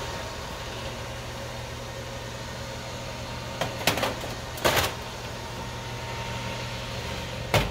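Countertop air-fryer oven running steadily on air-fry with its super-convection fan, a constant hum and whoosh while it preheats to 400 degrees. Short metal knocks come about four and five seconds in and again near the end as the mesh basket is put in on the rack.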